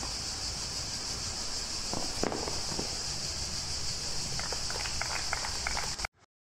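Tennis ball struck a few times in a rally on a clay court, about two seconds in, then scattered clapping from a sparse crowd near the end as the point is won. A steady high hiss runs underneath, and the sound cuts out just before the end.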